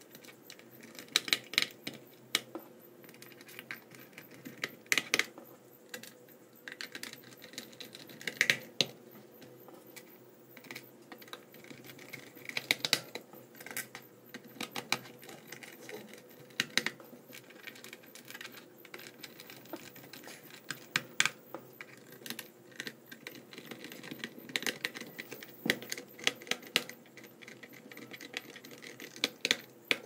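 Irregular clicks and taps of hands pressing and working on a laptop's plastic bottom cover, plastic parts knocking and snapping together.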